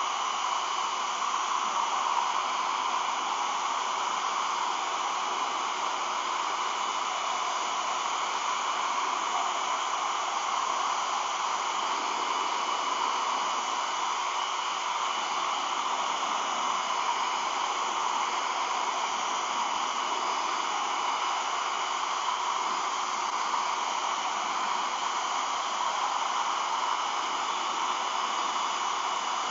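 Handheld hair dryer running steadily, an even rush of blown air with a faint steady whine, heating clear vinyl film to soften it while it is stretched over a goggle lens.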